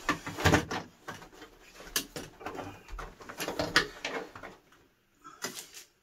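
Irregular knocks and clatter of a plastic TV back cover and metal chassis being handled and shifted, with a last sharp knock shortly before the end.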